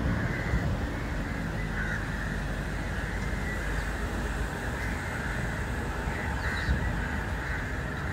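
Birds calling outdoors over a steady low rumble and hiss.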